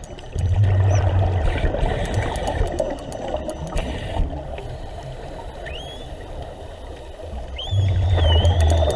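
Scuba diver's regulator underwater: the bubbles of an exhalation rumble loudly, starting about half a second in and again near the end, over a steady underwater hiss with fine crackling clicks. Thin whistles rise and waver briefly, near the middle and during the second exhalation.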